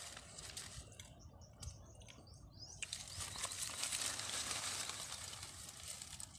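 Leaves and undergrowth rustling and crackling as a person shifts and gets up among them. The rustling is sparse at first and grows dense and steady from about halfway through.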